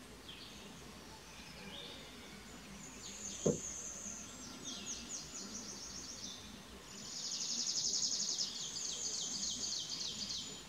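Outdoor nature ambience: high-pitched, fast-pulsing trills that come and go, thickest over the last few seconds. One short knock about three and a half seconds in.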